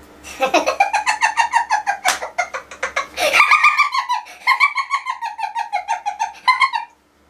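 A man laughing loudly at length in rapid, high-pitched bursts. About halfway through the laugh jumps to a higher, falling peal, and it stops abruptly near the end.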